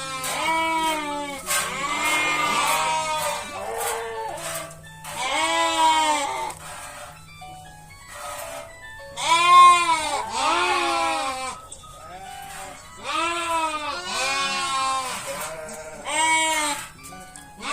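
A flock of sheep bleating, many calls overlapping in bouts with short lulls between.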